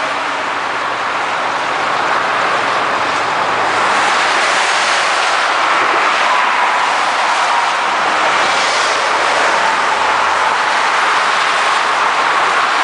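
Steady traffic noise of a long convoy of tow trucks, pickups and cars driving past at highway speed, mostly tyre noise on the pavement with engines underneath. It grows a little louder a few seconds in.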